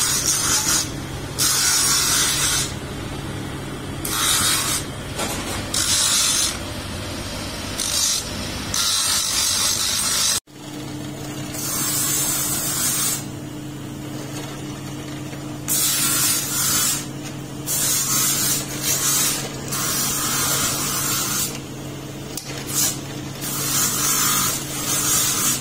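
A motor-driven abrasive wheel runs with a steady hum while a wooden knife handle is pressed against it in repeated passes, each pass a burst of hissing grinding. About ten seconds in the sound cuts to a drill press running with a steady hum as it bores into wooden handle blanks, the hiss of the bit in the wood coming and going in bursts.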